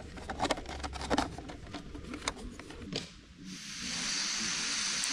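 Clicks and rattles of camping gear being handled, then about three and a half seconds in a steady hiss starts: gas flowing from a camping stove burner just before it is lit to boil the kettle.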